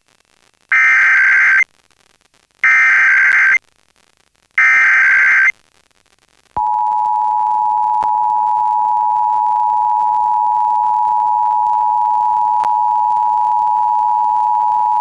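Emergency Alert System SAME header on FM radio: three bursts of warbling data tones, each about a second long with a second's gap between them. Then the 853/960 Hz two-tone attention signal starts about six and a half seconds in and holds steady. Together they mark the start of an EAS alert, here the state's required monthly test.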